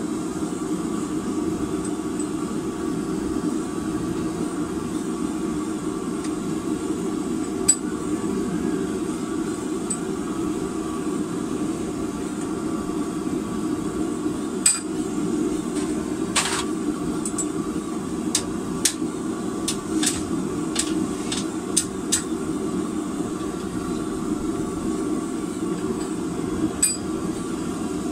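A gas forge burner runs steadily underneath sharp metal clinks and taps as forge-heated rebar is twisted. The clinks come singly at first, then in a quick cluster of about eight over a few seconds, about two thirds of the way through.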